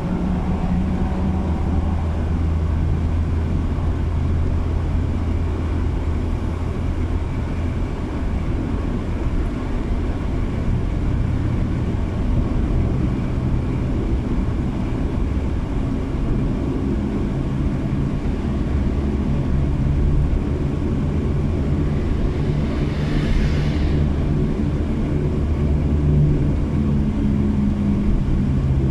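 Car driving through a road tunnel, heard from inside the cabin: a steady low drone of engine and tyre noise. A brief hiss swells and fades about three-quarters of the way through.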